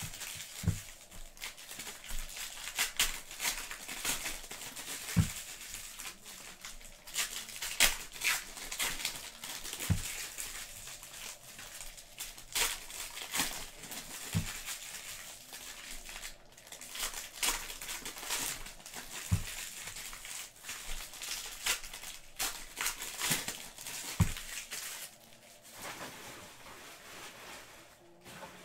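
Foil trading-card pack wrappers crinkling and crumpling as packs are opened and cards are handled and shuffled, with a soft low thud about every four to five seconds. The crackling thins out near the end.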